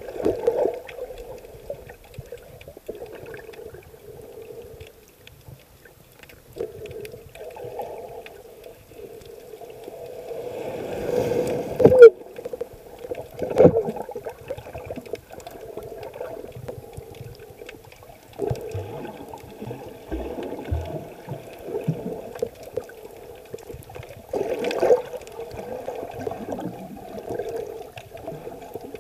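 Muffled underwater sound of moving water and sloshing surge, heard with the microphone under the surface. It swells to a loud peak ending in a sharp click about twelve seconds in, with further surges a little later and again near twenty-five seconds.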